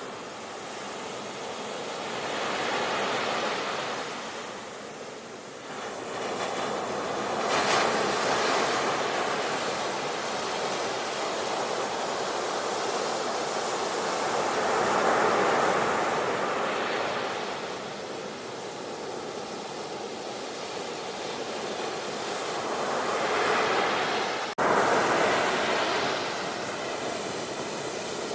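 Sea waves breaking and washing ashore, the surf swelling and fading every few seconds. Near the end the sound drops out for an instant and comes straight back louder.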